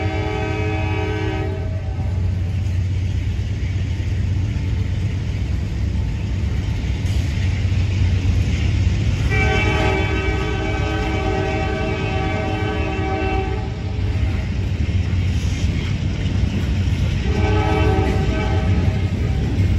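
CSX mixed freight train rolling past, its freight cars giving a steady low rumble, while the locomotive horn sounds three times: a blast that ends about a second and a half in, a long blast of about four seconds starting around nine seconds in, and a short blast around seventeen seconds in.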